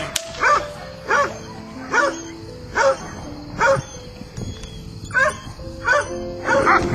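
Dog giving short, high-pitched bark-yips at a steady beat of about one every second, with a pause near the middle. These are the agitated, aggressive calls of a dog that has been provoked. Background music with held notes plays underneath.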